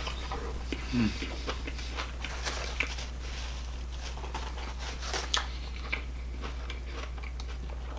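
Person chewing and biting fast food, with scattered small crunches and mouth clicks. A brief low falling sound about a second in, over a steady low electrical hum.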